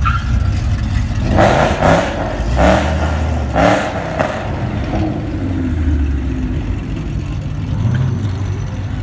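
Cars cruising past at low speed with a steady low engine rumble; a red Ford Mustang blips its throttle in three or four short, loud revs between about one and a half and four seconds in as it comes by.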